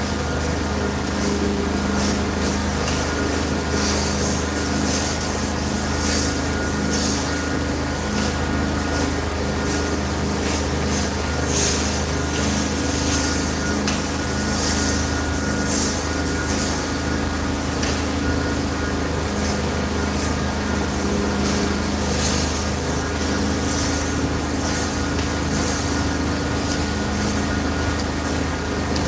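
A carpet-cleaning extraction machine runs with a steady drone. Irregular hissing surges come from the upholstery tool spraying and sucking as the chair seats are cleaned.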